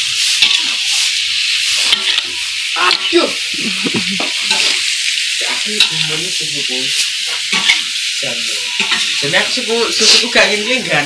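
Pieces of cow skin and chili sizzling in a steel wok while a metal spatula stirs and scrapes them, with frequent clinks of the spatula against the pan.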